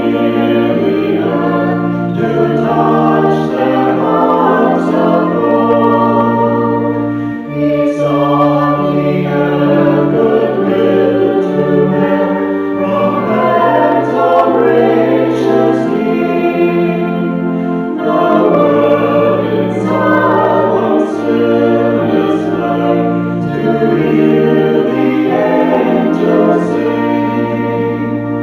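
Choir singing a Christmas hymn, with held low accompanying notes under the voices.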